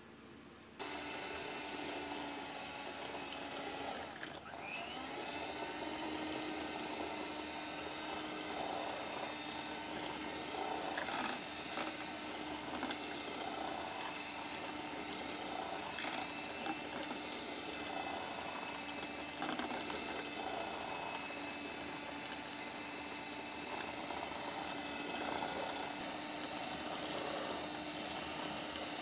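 Electric hand mixer switched on about a second in, then running steadily with its twin beaters whirring through runny egg batter in an aluminium saucepan. Its hum dips and picks up again around four seconds in, with occasional clicks.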